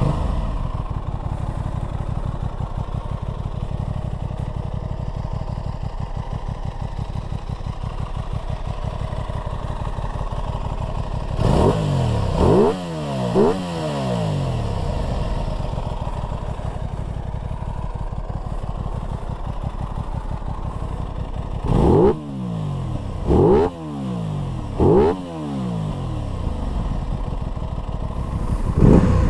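Aprilia RS660's 659 cc parallel-twin engine idling steadily and blipped to short, quick revs that fall straight back to idle: twice about twelve seconds in, three times around twenty-two to twenty-five seconds, and once more near the end.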